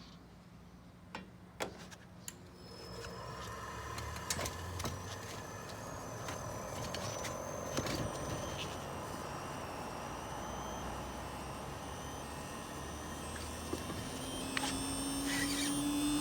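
1995 Toshiba RAS-251ETS air conditioner outdoor unit with a twin-rotary compressor, starting up: a few clicks, then about two and a half seconds in the fan and compressor start and run with a steady whirring hum. Near the end a low tone comes in and slowly rises in pitch.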